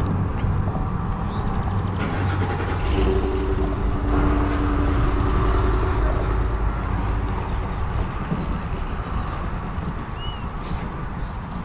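Road traffic running in the background as a steady low rumble, with one vehicle's engine coming up louder through the middle and fading. A couple of short high chirps sound near the end.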